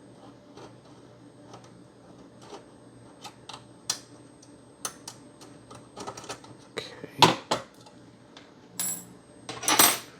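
Small clicks and clatter of plastic and metal parts being handled as an Xbox One S motherboard is worked loose from its chassis, sparse at first, with louder rattles about seven seconds in and near the end.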